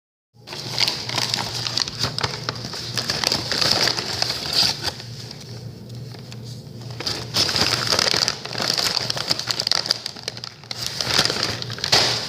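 Close, dense crunching and crackling that swells and eases in spells of a few seconds, over a steady low hum.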